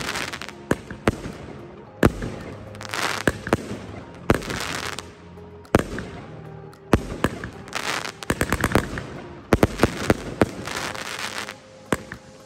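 Multi-shot consumer aerial firework cake firing: sharp shots and bursts one after another, with quick rapid-fire clusters about eight to ten seconds in. Several bursts break into a crackling sizzle lasting up to a second.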